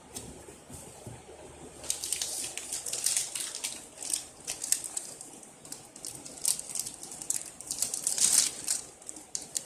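Motherboard packaging being handled: a run of crisp rustling and crinkling, starting about two seconds in and loudest near the end.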